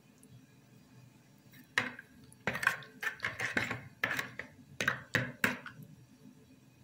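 A spoon stirring sugar and yeast into milk in a bowl, knocking and scraping against the bowl in a run of about ten quick strokes that starts about two seconds in and stops near the end.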